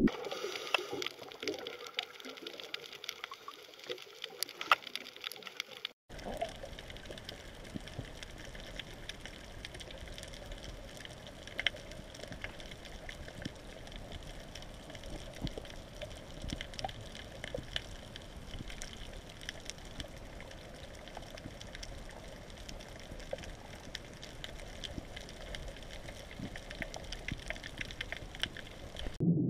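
Underwater ambience: a steady hiss crowded with many small clicks and crackles. The sound changes abruptly at a cut about six seconds in.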